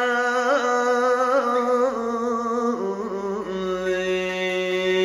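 A man singing a Turkish folk song (türkü) in a long drawn-out melisma with no words: a held note decorated with small turns, which steps down to a lower held note about three seconds in.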